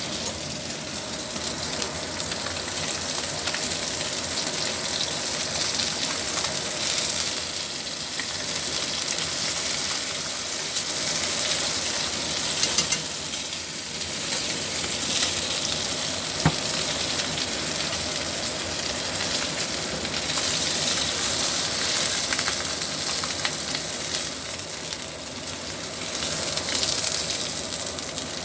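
Pot of fish and tofu soup at a hard boil, bubbling and hissing steadily, with a few sharp clicks midway.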